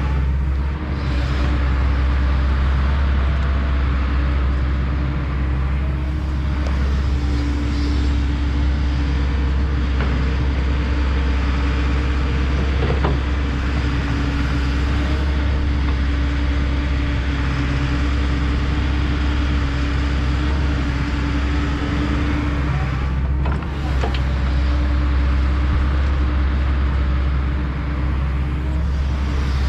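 Kobelco SK210 hydraulic excavator's diesel engine running steadily under work, a deep constant drone with a steady hum over it and a couple of faint knocks along the way.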